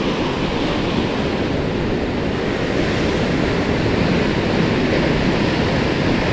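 Ocean surf washing steadily onto a rocky shore, with some wind on the microphone.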